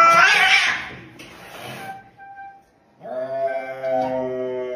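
Domestic cats in a fight: a loud, wavering screech cuts off about half a second in. After a lull, from about three seconds in, comes a long, low, drawn-out yowl, the threat moan of a cat squaring off against another.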